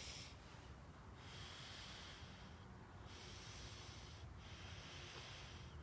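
A person breathing faintly through the nose close to the microphone: four breaths in a row, each about a second and a half long.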